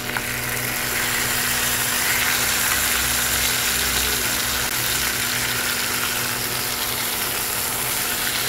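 Masala-coated tilapia shallow-frying in hot oil in a pan, a steady sizzle, with a low steady hum underneath.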